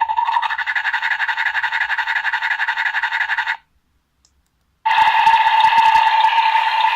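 Dentist Barbie doll's electronic sound chip playing a buzzing sound effect through its small speaker. The effect runs for about three and a half seconds and cuts off, and after a pause of a little over a second a second buzzing effect starts.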